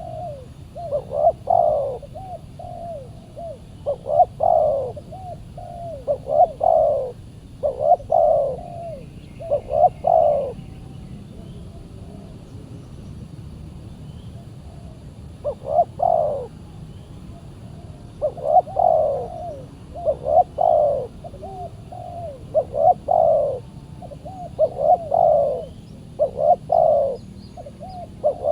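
Spotted doves cooing: short, repeated coo phrases about every second or two, with a pause of several seconds a little before the middle.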